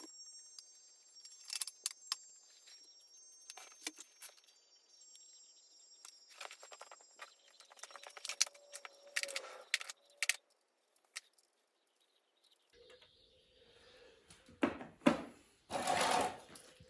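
Metal engine parts and hand tools clinking and tapping while the jackshaft of a Triumph TR7 engine is oiled and fitted: scattered sharp clinks, a brief lull past the middle, then a few louder knocks near the end.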